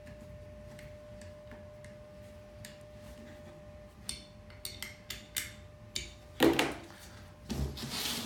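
A steel hex key turning socket head cap screws into a metal mount bracket: faint at first, then a run of small metallic ticks from about four seconds in. Near the end come a louder knock and a brief clatter as the tool and the bracket are handled on the table.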